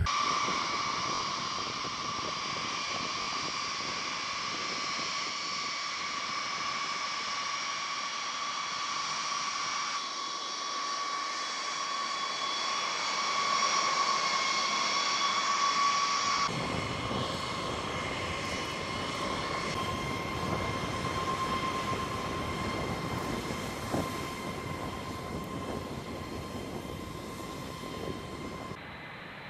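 Boeing B-52 Stratofortress's eight TF33 turbofan jet engines running on the ground: a steady high jet whine over a rushing hiss, with a deeper rumble joining a little past halfway.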